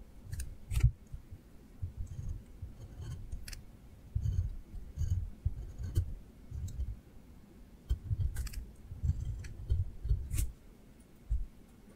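Drawing by hand on paper: short scratching strokes of the drawing tip across the page, irregular low bumps from the hand moving over the sheet, and a few sharp clicks.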